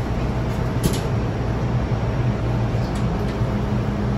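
MTR M-train electric multiple unit standing at a platform with its doors open: a steady low hum from its onboard equipment and ventilation, with a faint click about a second in.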